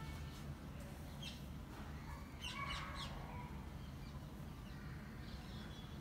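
Faint bird calls: short chirps, with a louder cluster of calls about two and a half seconds in, over a steady low hum.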